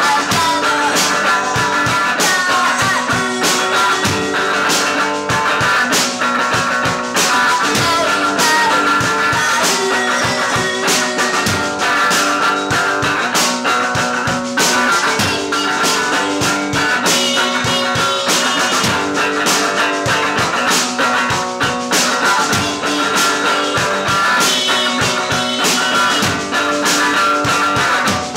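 Rock band playing: electric guitar with a steady drum beat.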